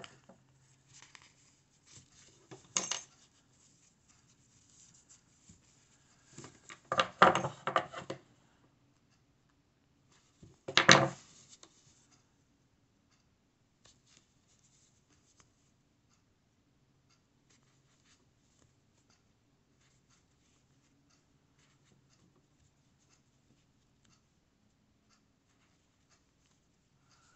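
Scratchy rustling and a few clicks from hands handling a crocheted yarn piece and metal crochet hook, loudest about 3, 7 and 11 seconds in, then near silence.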